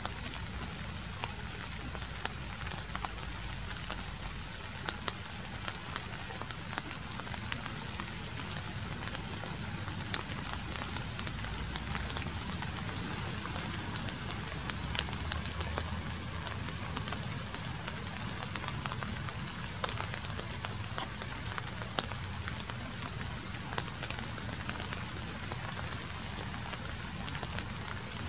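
Steady rain falling, with scattered sharp ticks throughout.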